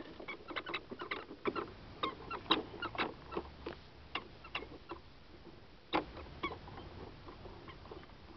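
Irregular light clicks and taps of plastic toys being handled: a toddler's ride-on car and its steering wheel worked by small hands, several quick knocks a second at first and then fewer, with one sharper knock about six seconds in.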